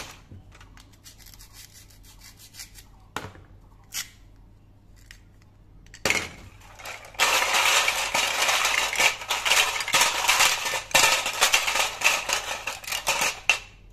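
Plastic toy fruit and vegetable pieces clattering and scraping against a stainless steel pot as a hand stirs them around, a dense continuous rattle from about seven seconds in. Before that, scattered light clicks and taps of the plastic pieces being picked up and set down.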